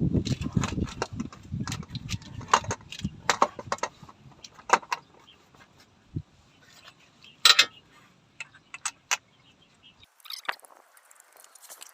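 Metal hand tools clinking and tapping against metal while a car's starter motor is being bolted back in: a low rumble of handling for the first couple of seconds, then scattered sharp clicks, with one louder knock about seven and a half seconds in.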